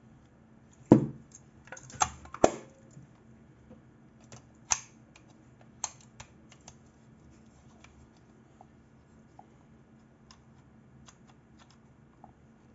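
Mechanical clicks from handling a Praktica film SLR. A loud snap about a second in, likely the camera back being shut, is followed by a quick cluster of clicks, single clicks around five and six seconds, and lighter scattered clicks as the top-plate controls such as the shutter-speed dial are worked.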